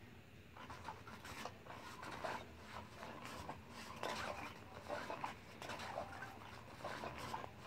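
Motorised cat toy running: its wand sweeps around under the nylon cover, making irregular scratchy rustling strokes of the fabric that start about half a second in.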